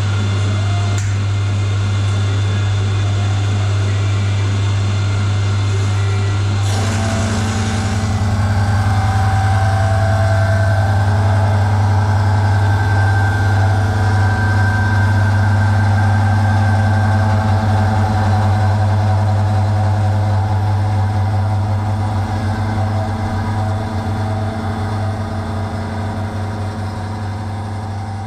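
Milling machine running steadily with a strong low hum; about seven seconds in a harsher, higher cutting sound with several steady tones joins, as the cutter works into the V8 cylinder head, easing off near the end.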